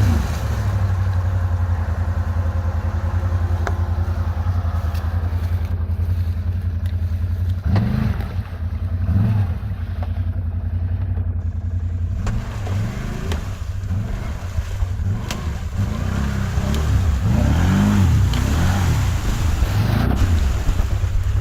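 ATV engine running steadily, revved up and down a few times about a third of the way in and repeatedly in the second half.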